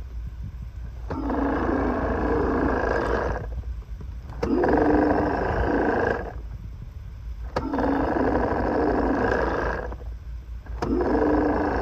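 Electronic roar sound effect from a Fisher-Price Imaginext dinosaur toy playing through its small speaker, four roars of about two seconds each with short pauses between, while the toy's eye lights up.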